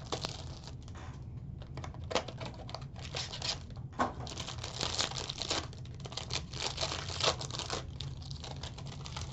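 Plastic wrapping being torn and crinkled in irregular crackling bursts as a trading card mini box is opened.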